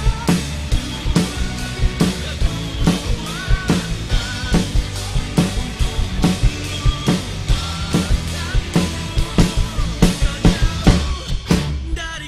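Acoustic drum kit played with sticks: bass drum, snare and cymbals keep a steady beat, with a quick run of hits near the end. It plays along to a drumless backing track of a pop-rock song whose bass and melody are heard underneath.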